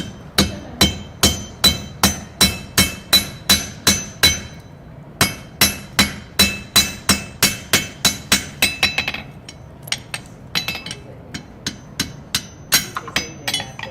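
Blacksmith's hand hammer striking hot iron on an anvil, hand-forging a nail: a steady run of ringing blows about three a second, a short pause near the start, a quicker flurry later, then fewer, lighter taps near the end.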